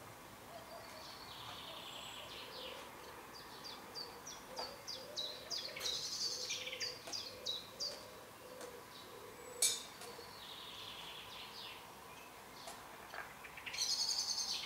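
Birds singing and chirping: a run of short, quickly repeated high notes through the middle, with one sharp click about ten seconds in and a brief hiss near the end.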